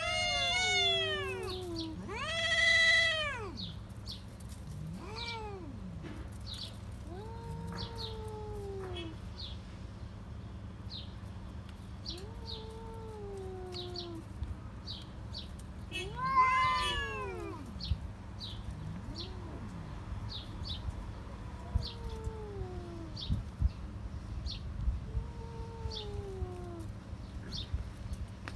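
Cats caterwauling at each other in a fight standoff: long, wavering yowls that rise and fall, loudest near the start and about two-thirds of the way through, with lower drawn-out moaning yowls in between.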